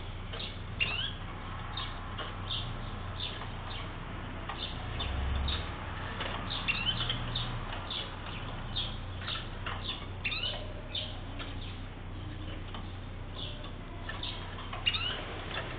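Atlantic canaries (wild-type Serinus canaria) giving short, high call notes, the "piadas", repeated every second or so, some of them slurred up or down.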